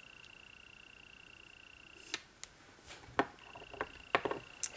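Gel-polish curing lamp giving a steady high-pitched whine that drops out for about a second midway, with scattered light clicks and taps.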